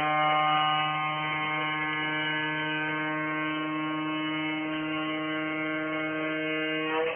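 MV Mayne Queen ferry's ship horn sounding one long, steady blast of about seven seconds, cutting off near the end.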